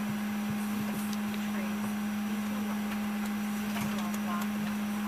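Steady hum in the cabin of a parked turboprop airliner, one unchanging low tone, with faint passenger chatter and a few small clicks.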